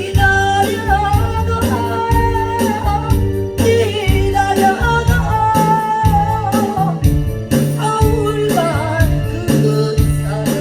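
A singer performing a Korean trot-style song over a backing track with a steady bass line and beat.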